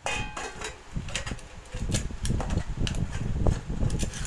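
Stainless steel pots, plates and a ladle knocking and clinking together as they are handled, in an irregular string of sharp metallic clanks.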